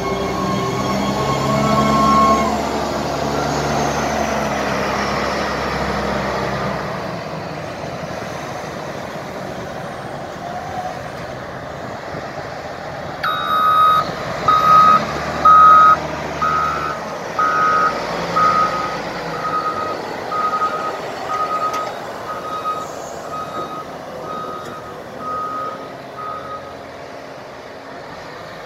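Caterpillar 988H wheel loader's diesel engine running under load as the machine drives, its pitch rising and falling in the first few seconds. About halfway through its reversing alarm starts beeping, about one and a half beeps a second, and the beeps grow fainter toward the end.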